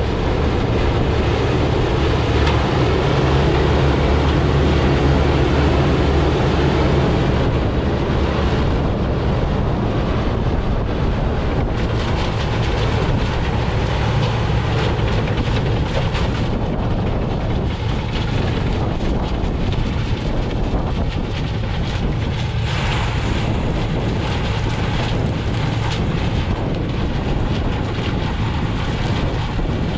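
A heavy engine running steadily at a sugarcane loading yard, with wind buffeting the microphone. The engine is strongest in the first several seconds, then eases a little and runs on.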